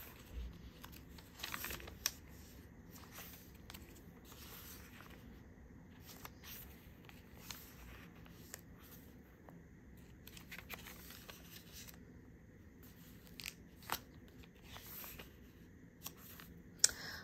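Paper pages of a Traveler's Notebook journal insert being turned by hand: quiet rustles and flicks of paper every few seconds, with a few sharper page snaps.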